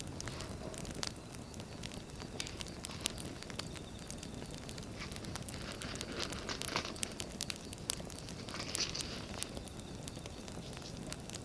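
Wood fire crackling, with scattered sharp pops over a steady hiss. Paper crinkles and rustles in among it.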